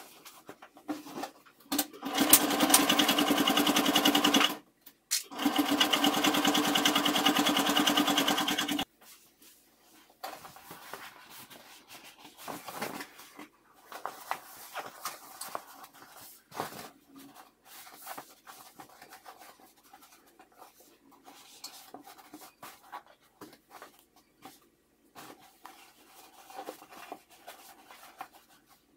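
Electric sewing machine stitching in two runs of a few seconds each, with a short pause between them. Then quieter rustling and handling of fabric with scattered light clicks.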